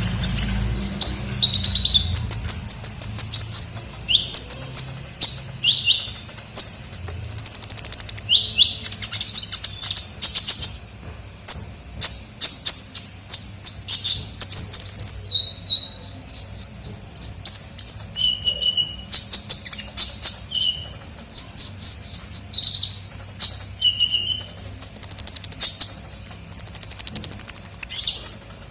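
A sunbird (kolibri ninja) singing without pause: rapid high-pitched chirps and twittering trills, with several buzzy trills held about a second each. It is the bird's lure call, the song used to attract wild birds of its kind. A faint low hum runs underneath.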